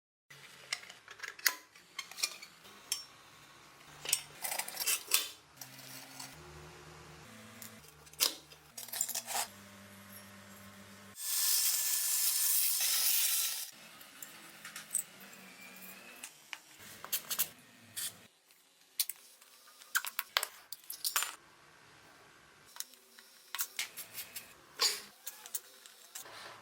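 Small metal parts clinking and clanking, a string of sharp knocks and rattles, with a steady hiss lasting about two seconds near the middle.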